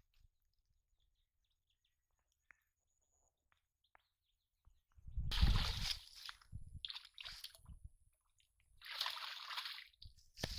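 A hooked carp thrashing at the water surface: a sudden heavy splash about halfway through, then further bursts of splashing as it is hauled in.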